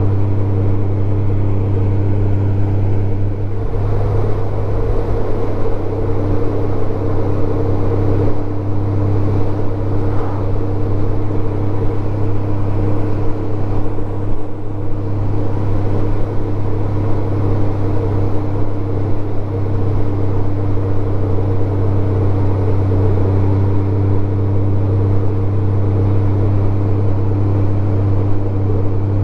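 Honda Gold Wing GL1500's flat-six engine running at a steady cruise, a constant drone under road and wind noise.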